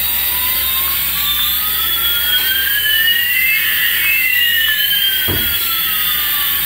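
Light-up toy Airbus A380 plane playing its electronic jet-engine sound effect: two whining tones, one rising and one falling, crossing midway. A dull knock sounds about five seconds in.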